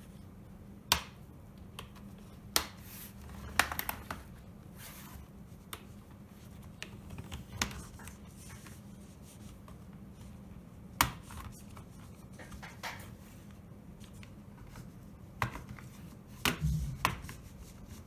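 Plastic snap-fit latches of an Acer Aspire 3 A315 laptop's bottom cover clicking as the cover is pried off, a sharp click every few seconds among small handling sounds.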